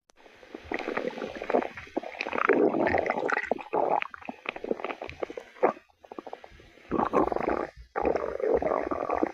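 A stomach growling and gurgling in long, crackly runs, broken by short pauses about six and eight seconds in.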